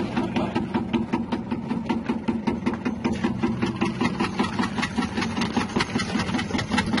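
Electric chip-slicing machine running: a steady motor hum with a rapid, regular ticking from the rotating blade disc.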